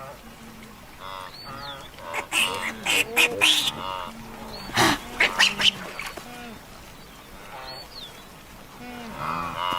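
Blue wildebeest herd calling with repeated nasal grunts and honks, with a cluster of loud splashes in the water between about two and six seconds in.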